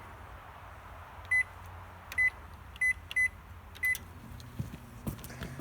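Microwave oven keypad beeping as it is set: five short, high single-pitched beeps at uneven intervals. Then, near the end, the oven starts running with a low steady hum.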